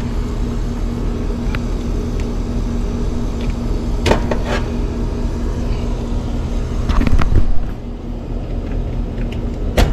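Steady low machine hum with a constant tone, from the running HVAC equipment, broken by a few sharp clicks and knocks as the unit's run capacitor is handled and its terminals are got at for testing.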